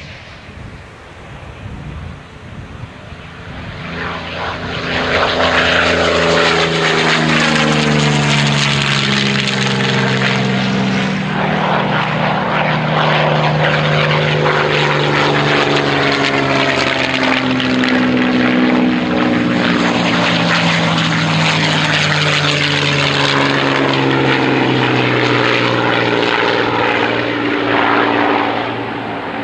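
V12 piston engines of WWII fighter warbirds making low passes. A loud, steady propeller-engine drone swells in over the first few seconds, and its note slides down in pitch several times as aircraft go past.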